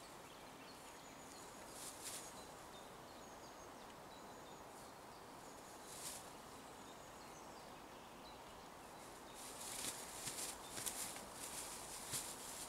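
Plastic bag rustling and crinkling in someone's hands in short bursts, busiest in the last few seconds, over faint high bird chirps.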